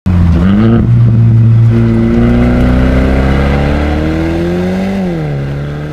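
Mercedes-Benz A250's turbocharged four-cylinder engine, running through an Fi Exhaust valved cat-back exhaust, accelerating hard: the pitch climbs steadily, then drops about five seconds in at an upshift, and the sound fades as the car pulls away.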